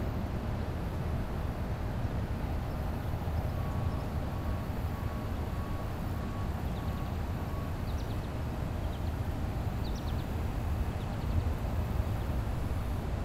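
Outdoor ambience: a steady low rumble, with a run of short, evenly spaced high peeps (about two a second) for a few seconds and a few faint bird chirps later on.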